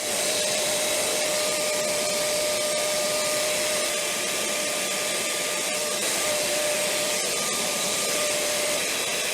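A vacuum-type motor running steadily: an even whooshing whir with a faint steady whine.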